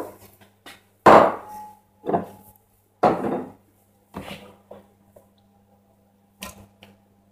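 Grated butternut squash put by hand into a stainless steel mixing bowl: a handful of dull knocks about a second apart, one with a short metallic ring, over a faint steady hum.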